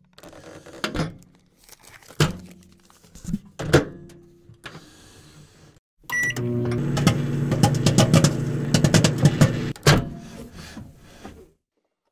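A few sharp knocks and clicks, then a Danby Designer microwave oven's keypad beeps about six seconds in. The oven starts running with a loud, steady electrical hum, crackling and snapping with sparks arcing inside, and cuts off near the end.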